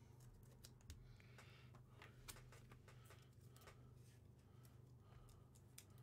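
Faint handling sounds: scattered light clicks and rustles of trading cards and plastic binder sleeve pages being turned, over a steady low hum.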